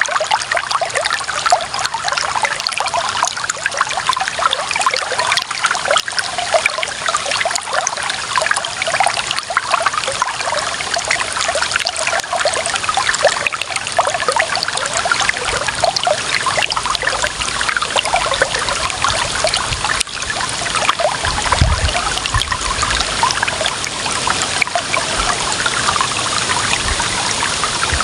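Shallow clear water running and trickling steadily over stones, a dense, even splashing babble. A brief low rumble comes about three quarters of the way through.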